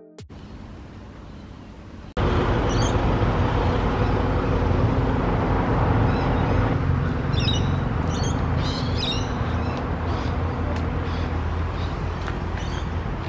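Road traffic running past as a steady rumble, cutting in suddenly about two seconds in after faint hiss. Birds chirp over it in a cluster of short calls a little past the middle.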